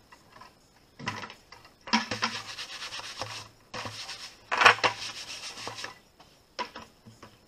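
Rough scraping and rubbing noises in a few bursts, the loudest a little past halfway: a plastic bucket being shifted and lifted against the plastic laundry barrels.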